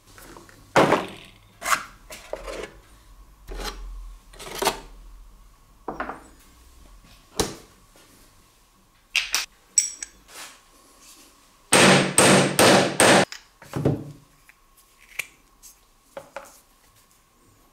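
Tools knocked and set down on a wooden workbench in separate knocks, then a few sharp clicks. About twelve seconds in comes a quick run of about five loud hammer blows on a steel hole punch, cutting a disc out of rubber sheet. A faint steady tone runs underneath.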